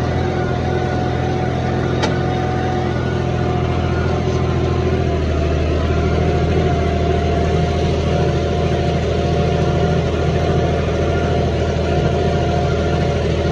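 John Deere 5050D tractor's three-cylinder diesel engine, fitted with a modified fuel pump and turbo, running steadily under load while pulling a 20-disc hydraulic disc harrow through soil. Its note shifts slightly about five seconds in.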